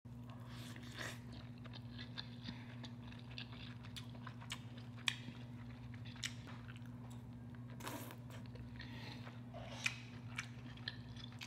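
A person biting and chewing sauce-covered seafood-boil pieces close to the microphone, with scattered wet mouth clicks and smacks. A steady low hum runs underneath.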